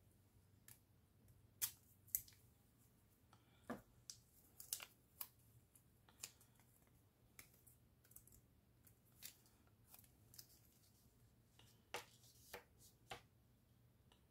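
Faint, irregular clicks and rustles of hands handling paper stationery, with a few brief snips.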